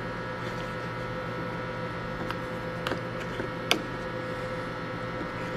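Plastic measuring spoon stirring cornstarch slurry in a plastic bowl, giving a few soft clicks against the bowl, over a steady electrical hum.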